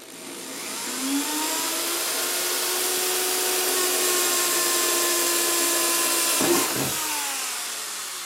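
Corded electric drill with a small bit spinning up and running steadily as it bores a pilot hole through a vehicle's sheet-metal fender. About six and a half seconds in there is a brief knock, then the motor winds down slowly as the trigger is released.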